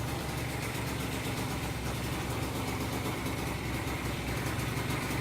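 Honda Razz scooter engine with a freshly fitted big bore kit idling steadily, partway through its break-in.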